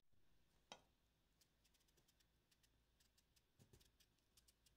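Near silence with faint, quick ticks of a kitchen knife peeling the skin off a cucumber, and one louder click near the start.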